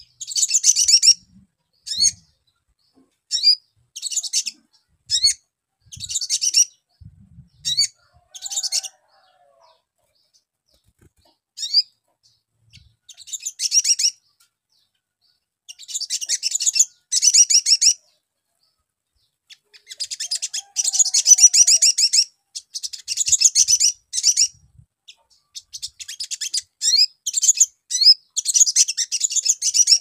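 Male olive-backed sunbird (sogon) singing: high, rapid chittering phrases of half a second to about two seconds, repeated with short pauses, the phrases growing longer and louder in the second half.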